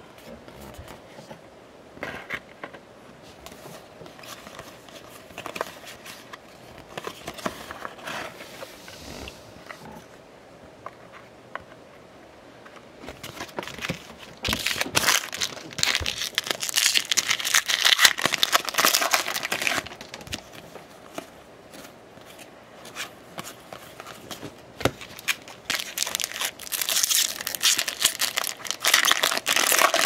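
Foil wrapper of a trading-card pack crinkling and tearing as the pack is handled and ripped open, loudest in a long stretch in the middle and again near the end. The quieter first part has light taps and slides of cards being set down.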